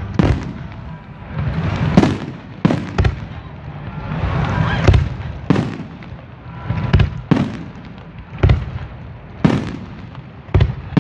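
Fireworks display: about a dozen sharp bangs from bursting shells, coming irregularly, some in quick pairs, with a noisy haze of hiss between them.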